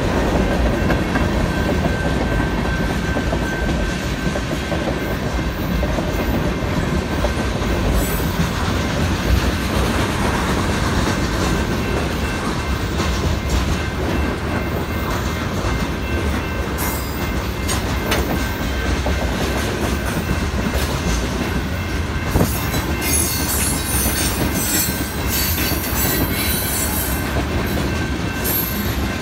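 Freight cars of a passing manifest train rolling by at a grade crossing: a steady loud rumble and clatter of wheels on the rails, with a steady high ringing tone from the crossing's warning bell. In the last several seconds the car wheels squeal at high pitch in bursts.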